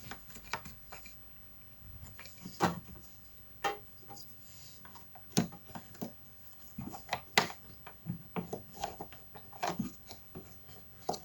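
Irregular light clicks and taps of hands working a dishwasher's door-spring cord, pulling it and hooking it into its slot.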